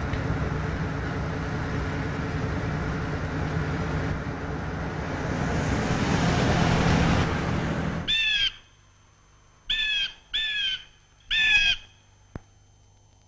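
A car drives past on a road, its engine and tyre noise swelling as it comes close and cutting off suddenly about eight seconds in. Then a bird gives four short calls.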